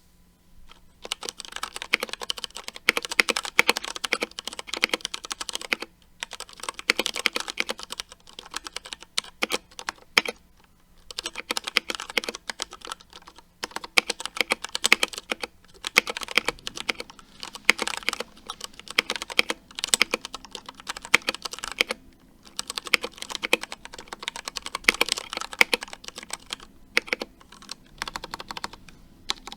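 Typing on a Ducky One 2 SF mechanical keyboard with Cherry MX Brown switches: fast runs of key clacks in bursts of a few seconds, with short pauses between them, as a typing sound test.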